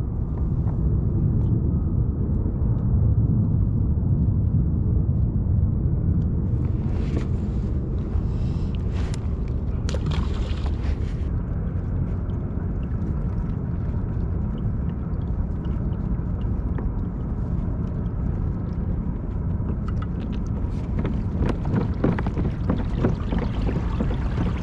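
Steady low rumble of wind and water around a pedal kayak under way, with a few brief sharp clicks about seven to eleven seconds in and again near the end.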